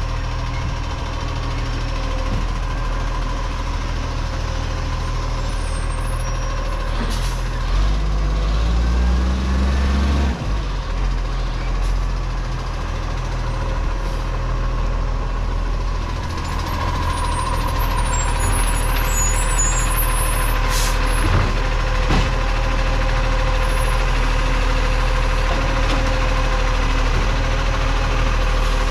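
Iveco side-loader garbage truck's engine running as it drives up, with a rev that rises about eight seconds in and drops off sharply near ten seconds. A steady high whine runs underneath, and there are a few short hisses typical of air brakes.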